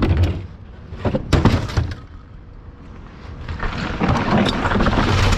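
Scrap metal being thrown off a truck onto a scrapyard pile, crashing and clattering. Sharp crashes come around a second in, then a longer rattling clatter builds near the end.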